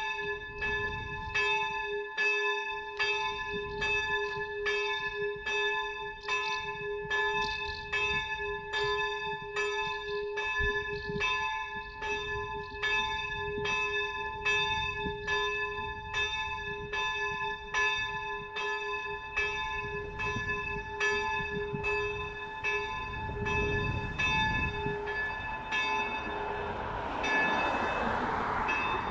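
Small church bell, the 130 kg bell tuned to a'', cast by Ulrich & Weule in 1918, swinging and tolling the death knell at about one and a half strokes a second. Near the end the strokes stop and the bell's hum dies away.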